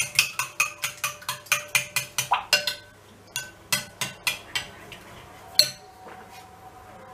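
A spoon stirring garlicky yogurt in a glass bowl, clinking against the glass about four times a second. The clinks thin out after about three seconds, with a single last clink near the end.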